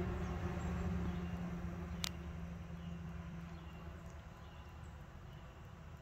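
A low engine rumble with a steady hum, fading away over the first few seconds. A single sharp click comes about two seconds in, and faint short high chirps follow.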